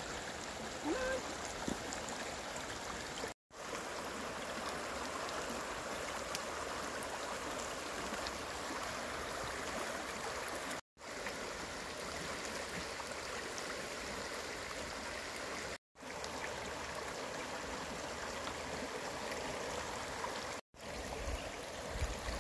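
Caney Fork River in flood, its muddy, rain-swollen water rushing past in a strong current: a steady wash of moving water. It is broken by four brief dead-silent gaps.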